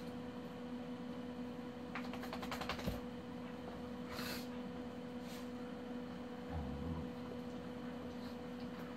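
Pets playing on a hard floor: a quick run of claw clicks for about a second, two short hisses of breath, and a soft thump, over a steady electrical hum.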